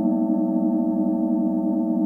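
Several forged singing bowls from a seven-note set ringing together in a sustained, steady chord of low tones that waver slightly.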